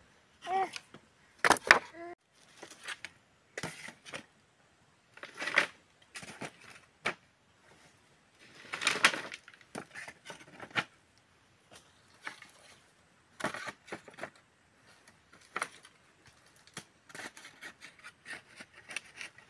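Dry bamboo poles knocking and clattering against each other as they are handled and laid across a woven bamboo basket, in irregular separate knocks. A short voice-like call with a bending pitch comes in the first two seconds, and a longer rustle about halfway through.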